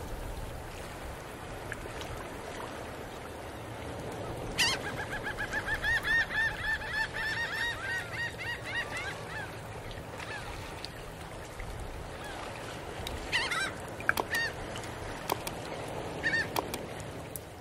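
A rapid run of honking bird calls, several a second, starting about four seconds in and lasting about five seconds, over a steady outdoor background hiss. A few short sharp clicks and brief calls follow near the end.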